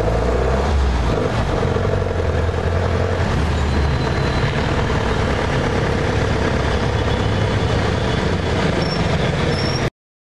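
Loud street traffic: vehicle engines running with a steady low hum under a dense wash of road noise, cutting off suddenly near the end.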